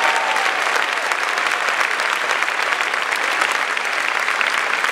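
Audience applauding: dense, steady clapping from many people.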